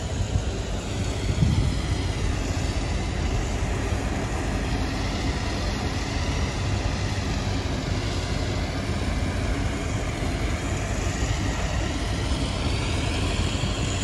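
Steady outdoor building-site background noise: a continuous low rumble under a broad hiss, with no distinct knocks or events.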